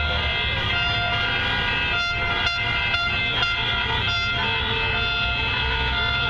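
Many car horns honking at once in a continuous overlapping din, a protest blare, over the low rumble of slow-moving traffic.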